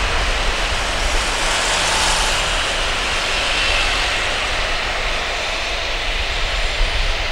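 Jet airliner's twin turbofan engines at low taxi power: a steady jet whine and hiss.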